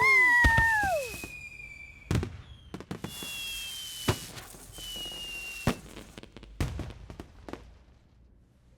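Fireworks display: high thin whistles falling slightly in pitch, broken by sharp pops and cracks a second or two apart, fading out near the end.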